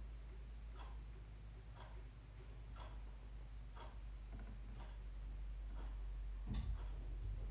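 Faint, evenly spaced clicks, about one a second, over a steady low rumble, with one louder knock near the end.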